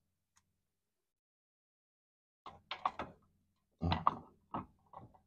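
Metal clicks and light knocks as a distributor is worked by hand down into the distributor bore of a small-block Chevy V8. They come in irregular little clusters, starting about halfway in.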